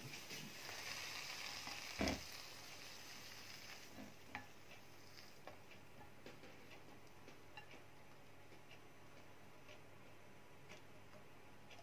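Stir-fried noodles sizzling faintly in a frying pan just off the heat, fading over the first few seconds, as they are tipped and scraped out onto a plate. There is a knock about two seconds in, followed by scattered light clicks and scrapes.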